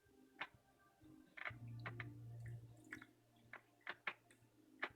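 Vinegar poured from a bottle into a glass pickle jar of sliced cucumbers: faint, irregular clicks and soft glugging ticks, with a low steady hum from about one and a half seconds in to about three and a half seconds.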